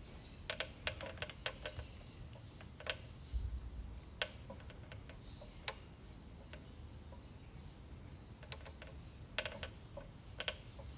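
Faint clicks and taps of typing on a keyboard, coming singly and in short clusters: a quick run in the first second and a half, single clicks about every second and a half after that, and another cluster about three-quarters of the way through.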